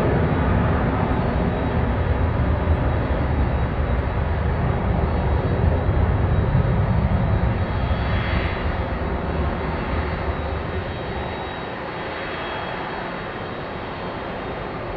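Jet airliner engines running across the airfield, a steady dense rush that eases off and drops to a lower level a few seconds before the end.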